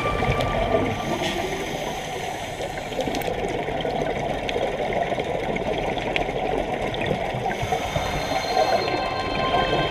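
Muffled underwater rushing and bubbling from scuba divers' exhaled air and moving water, heard through a camera's waterproof housing.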